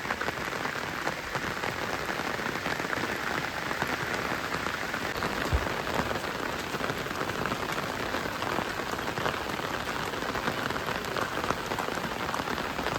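Heavy rain falling steadily in a dense, even patter of drops, with one brief low thump about five and a half seconds in.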